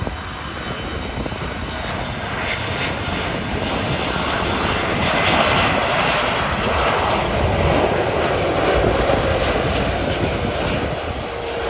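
Boeing 747-8 freighter's four GEnx jet engines on landing approach, passing close by. The noise swells to a peak about halfway through and eases slightly toward the end.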